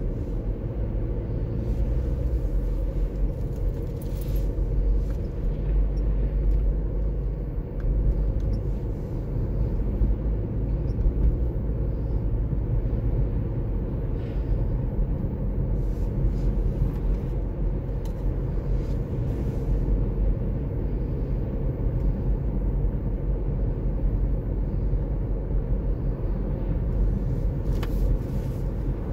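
Steady low rumble of a car driving at road speed: tyre, road and engine noise.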